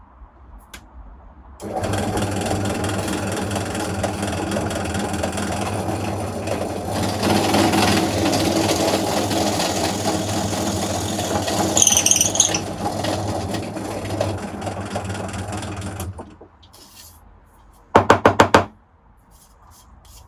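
Ozito DP-350U 350-watt bench drill press starting up about two seconds in and running steadily while a twist bit drills through scrap pallet wood, the cutting louder through the middle with a brief high squeak, then the motor stops about four seconds before the end. Near the end, a quick run of about five sharp knocks.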